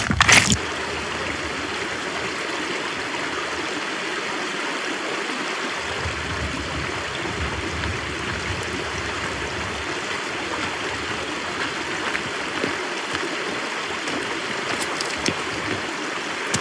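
Small mountain stream running over rocks close by, a steady, even rush of water, with a brief clatter at the very start.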